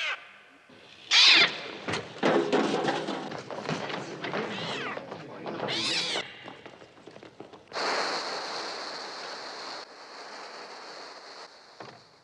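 Seagulls crying: a run of shrill calls that rise and fall in pitch, the loudest about a second in and about six seconds in, followed by a hissing rush of noise from about eight seconds that fades near the end.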